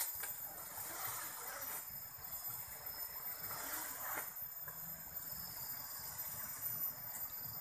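Steady outdoor ambience: a constant hiss with faint, thin, high insect tones held throughout, and a couple of soft brief rustles.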